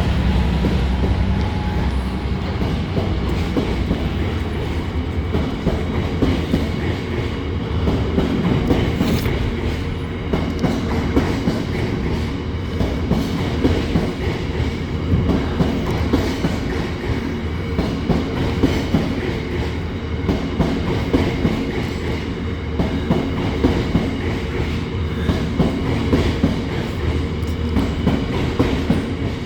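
Train running along the track: a steady low rumble with repeated wheel clicks over the rail joints.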